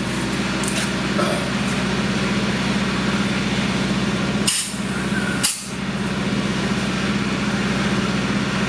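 Steady engine drone of the PolyLevel foam-injection equipment running while a slab is lifted, with two short sharp noises about a second apart a little past halfway.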